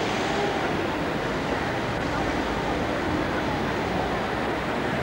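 Steady city street traffic noise, cars and buses passing, with faint voices of passers-by mixed in.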